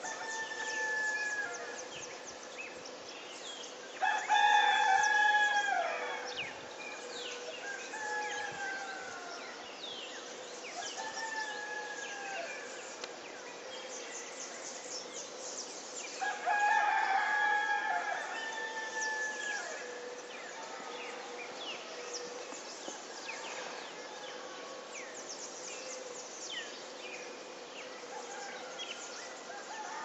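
Roosters crowing at dawn: one loud, drawn-out crow about four seconds in and another around sixteen seconds, with fainter crows answering in between. Small birds chirp constantly underneath, over a steady faint hum.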